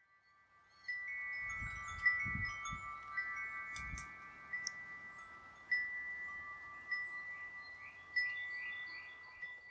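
Wind chimes ringing, with long overlapping tones that keep sounding after each strike and fresh strikes about one, two, six, seven and eight seconds in. A few low rumbles sound under the first four seconds.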